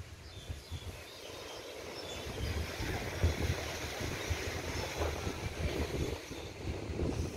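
Wind buffeting the microphone in uneven low gusts, over the steady wash of small sea waves on the shore; the gusts grow stronger about two seconds in.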